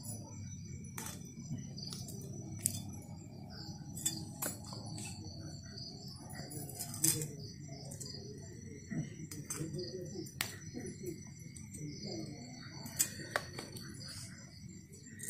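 Scattered sharp clicks and light metallic ticks at irregular intervals as small khoira fish are cut and cleaned on a boti blade and dropped onto a steel plate, over a steady low hum.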